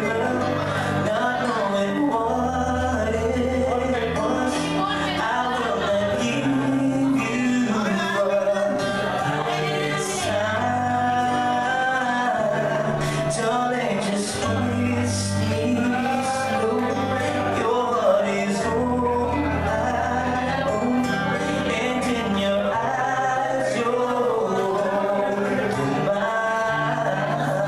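A man singing a pop song live into a microphone, with guitar accompaniment and a bass line that changes note every couple of seconds.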